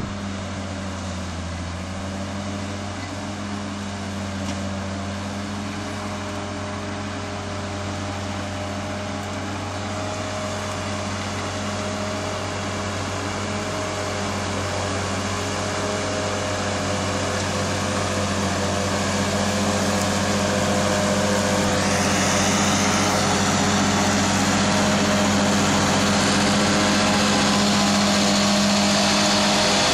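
New Holland tractor's diesel engine running steadily under load, driving a rear-mounted straw chopper that shreds and spreads stubble. It grows louder as it comes closer, and about two-thirds of the way in a rushing hiss joins the engine sound.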